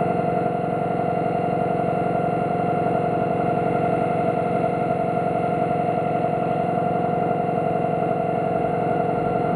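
Electronic noise drone played through amplifiers: several steady held tones over a dense, fast-pulsing buzz, which cuts off abruptly at the end.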